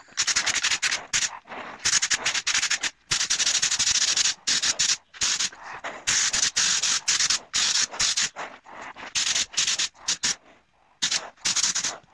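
Compressed-air gravity-feed spray gun hissing in repeated bursts as the trigger is pulled and released, laying high-build primer. The bursts last about half a second to two seconds each, with short gaps and a longer pause near the end.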